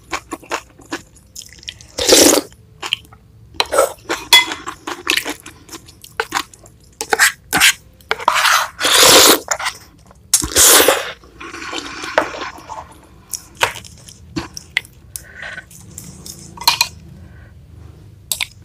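Close-miked eating: slurping thin noodles and chilli soup from a spoon in several loud half-second to one-second pulls, between them wet chewing and short clicks of wooden utensils against the bowl.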